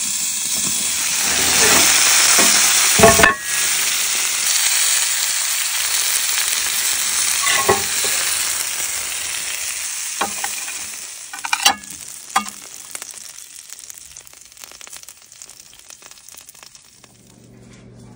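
Steak sizzling loudly in a hot cast iron skillet, a steady high hiss that dies away in the second half. A few sharp metal clanks break through, the loudest about three seconds in.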